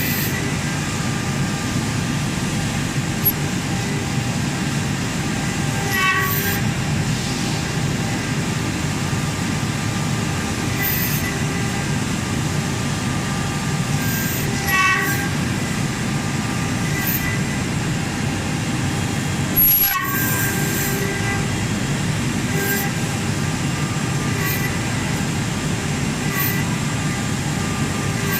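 CNC router running: a steady mechanical noise with faint steady tones above it, broken by a few short sharp clicks or squeaks.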